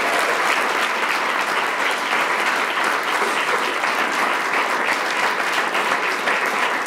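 Audience applauding steadily: a dense round of many people clapping at the end of a speech.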